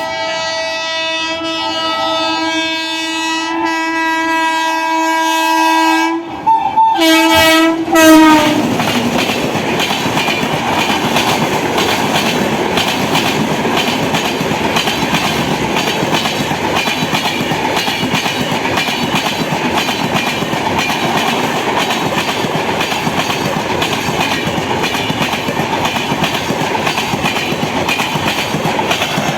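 An Indian Railways locomotive horn blown in one long, steady blast as the train approaches, then a second short blast that drops in pitch as the locomotive passes. The coaches then rush past with wheels clattering rhythmically over the rail joints.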